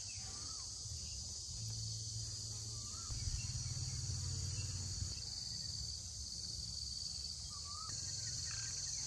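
A steady, high-pitched chorus of insects shrilling, with a few short bird chirps and a low rumble underneath.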